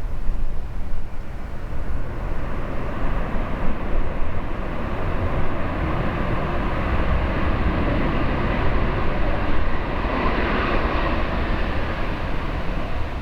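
Jet airliner engines roaring as the aircraft passes, the sound swelling to a peak about ten seconds in and then easing off, with wind rumbling on the microphone.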